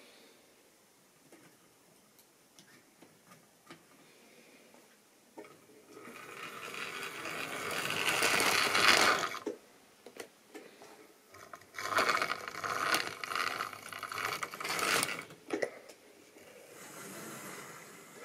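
Model railway locomotive's small electric motor and gears whirring as it runs along the track. It grows louder and stops abruptly about nine seconds in, runs again loudly from about twelve to fifteen seconds, and more faintly near the end. A few light clicks come first, from stock being handled on the track.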